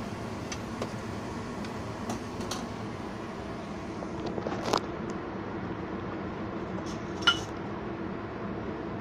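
Kitchen pots and utensils clinking and knocking now and then over a steady background noise. The loudest is a single ringing metal clink about seven seconds in.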